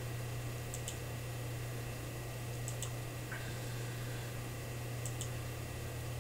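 Computer clicks, each a quick press-and-release pair, three times about two seconds apart, over a steady low electrical hum.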